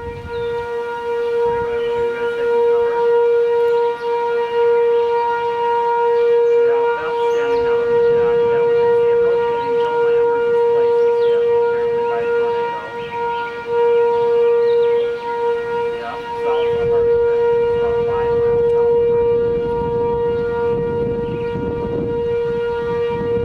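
Outdoor civil-defense tornado siren sounding a long, steady tone at one pitch, its loudness swelling and dipping slightly: a tornado warning in effect.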